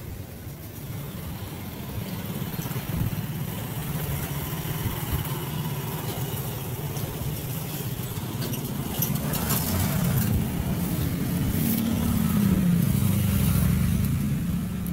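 Small motorcycle engines of tricycles (motorcycles with sidecars) running as they pass close by, growing louder in the second half with a brief rise in pitch.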